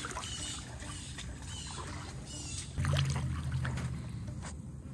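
Helicopters droning low in the distance, growing louder for about a second and a half near the middle, over sloshing floodwater, with high chirping frog calls repeating every second or so.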